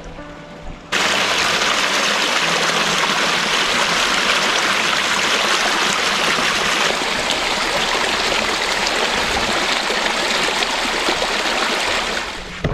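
Rushing water of a creek, a steady full rush that starts abruptly about a second in and runs until just before the end. Music plays briefly before the water starts.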